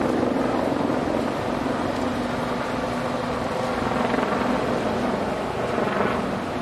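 Loud, steady mechanical drone of heavy engines, with a low hum that holds one pitch.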